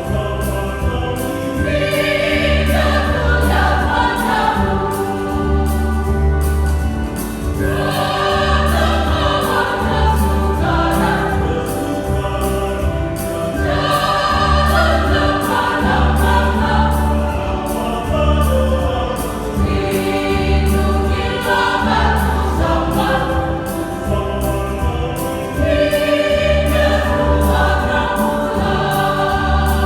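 Church choir singing over an accompaniment with a steady low beat, the sung phrases coming back about every six seconds.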